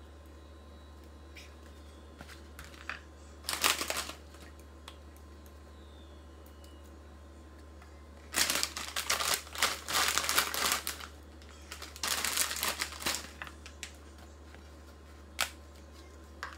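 Bursts of crinkling and crackling as pork rind tortilla chips are handled: a short burst, then a longer run of crackling several seconds later, and a single sharp click near the end.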